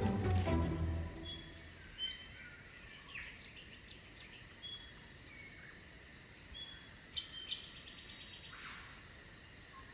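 Background music fades out within the first second, leaving a steady, high, pulsing insect chorus like crickets, with a few short bird-like chirps dotted through it.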